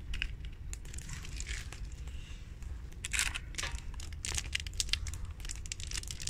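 Crinkling of a ration dark-chocolate bar's wrapper as it is handled, with a run of sharp crackles from about three seconds in.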